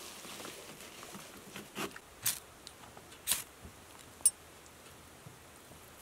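Three short scrapes, the last two about a second apart, then one sharp click, from hands lighting a campfire in a pile of dry wood shavings and split kindling.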